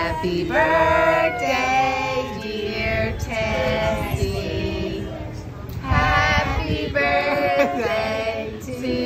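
Singing voices: a song sung in phrases with long held notes.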